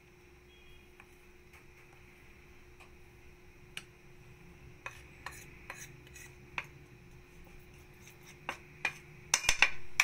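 Spatula and glass bowl clinking and tapping against a stainless steel mixing bowl as dry flour-and-cocoa mix is tipped into egg batter and folded in: scattered light clicks, then a quick run of louder knocks near the end.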